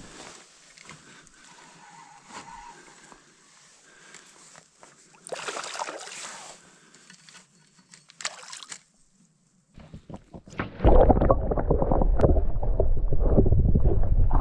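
A hooked brook trout splashing at the surface beside the boat, in two short bursts about five and eight seconds in. From about eleven seconds the sound turns to a loud, muffled, low rumble and slosh of water heard through an underwater camera housing.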